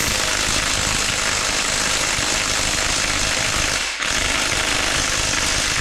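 Impact wrench hammering continuously on a bolt of a GM 2.4 EcoTec engine being torn down, with a short break about four seconds in.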